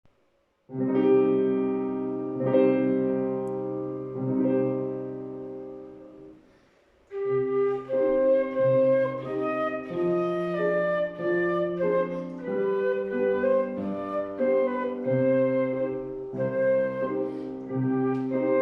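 A piano plays a few sustained chords as an introduction. About seven seconds in, a flute enters playing the melody in held notes over the piano accompaniment.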